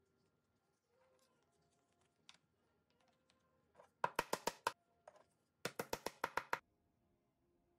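A small soft-faced hammer tapping a wooden dowel pin down into a walnut part. It strikes in two quick runs of light taps, about seven strikes and then about eight, with a pause of about a second between them. Faint clicks of parts being handled come before the first run.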